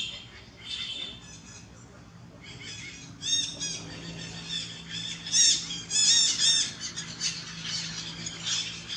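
Rapid series of short, high-pitched squawking animal calls, sparse at first and then coming thick and loudest from about three to seven seconds in, over a faint steady low hum.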